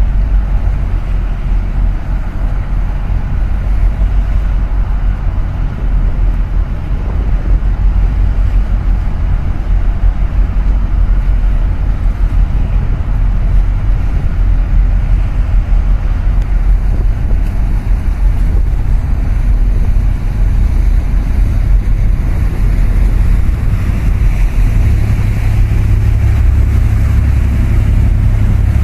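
Wind buffeting the microphone over water rushing past and the steady low rumble of a small boat under way. The rumble grows louder in the last few seconds as another small harbour boat passes close by.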